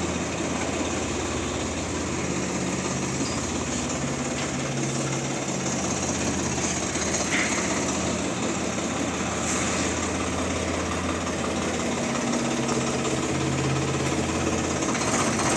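Tractor diesel engine idling steadily with a low, even hum.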